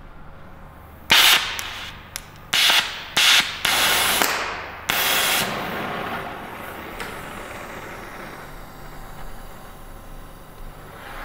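Oxy-fuel gas torch being lit and adjusted: a series of loud, sudden gas-flame whooshes from about a second in to about five and a half seconds, then the flame settles into a steady hiss that slowly fades.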